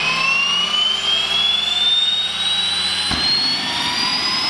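Small T62-2A1 turbine engine of a Mosquito XET helicopter spooling up on start, a loud whine rising steadily in pitch. A low hum underneath stops with a short thud about three seconds in.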